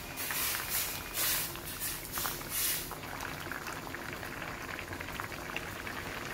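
Thick curry boiling in a stainless steel pan, bubbling steadily. A metal ladle stirs through it with a few short splashing strokes in the first three seconds.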